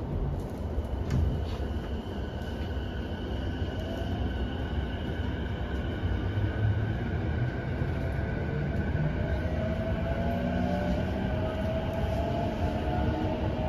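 Interior running sound of a JR East E233-5000 series electric train pulling away from a station: the traction motors' whine rises in pitch as it gathers speed, over a steady rumble of wheels on rail.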